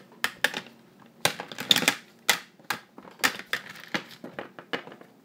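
An irregular run of about fifteen sharp clicks and knocks, roughly three a second, made by hard plastic toy pieces knocking on a wooden tabletop.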